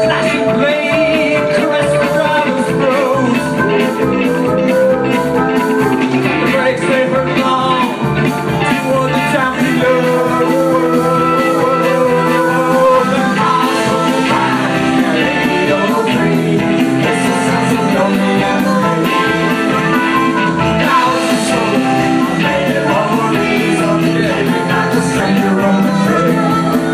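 A live rock-and-roll band playing: electric guitar, drums and keyboard, with vocals.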